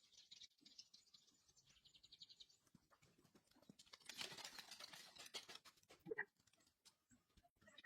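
Faint bird chirping, with a rapid high trill in the first couple of seconds, then a brief scratchy rustle about four seconds in.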